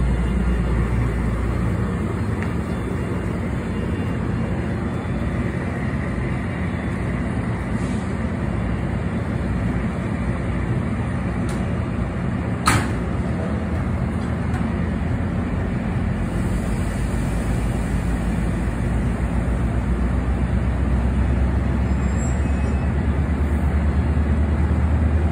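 MARC commuter train behind an MP36PH-3C diesel locomotive, rolling slowly past: a steady diesel drone and the rumble of the passing bilevel coaches, with one sharp metallic clank about halfway through. The low drone grows a little louder near the end.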